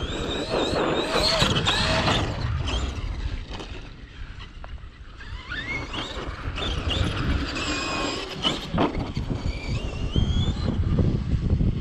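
Traxxas X-Maxx 8S RC monster truck's brushless motor whining up and down with repeated bursts of throttle, quieter briefly about four seconds in.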